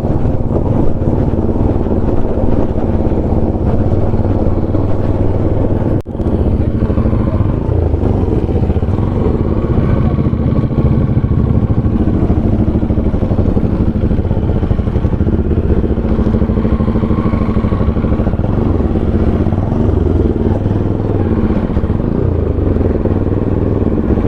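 Motorcycle running steadily while being ridden, a continuous low engine rumble that briefly drops out about six seconds in.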